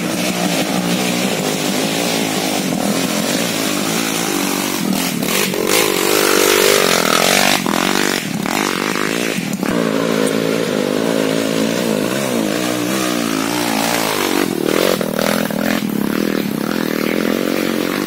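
Dirt bike engine running hard on a trail, its note rising and falling several times as the throttle is worked, with scattered knocks and rattles.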